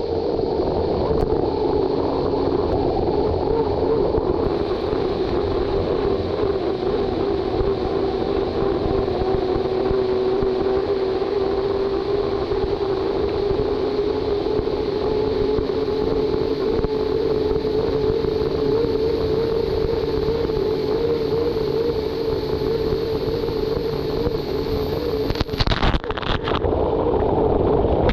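Unlimited hydroplane's turbine engine running at race speed, heard onboard: a steady, slightly wavering whine over a loud rush of wind and water, with a few sharp knocks near the end.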